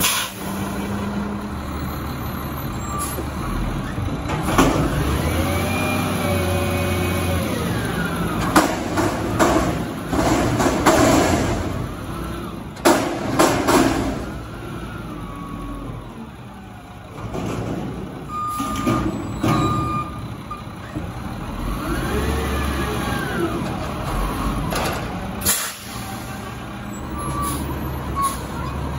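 White GMC WX64 garbage truck's diesel engine running, revving up and settling back several times, with several sudden sharp hisses from the truck's air system in between.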